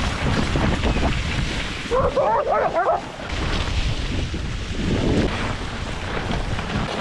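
Sled dogs of a mushing team barking in a short burst about two seconds in, eager to run, over a steady rumble of wind on the microphone.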